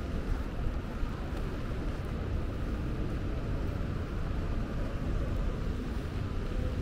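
Steady rainy-night city ambience: an even hiss of rain over wet pavement above a constant low rumble, with no distinct events.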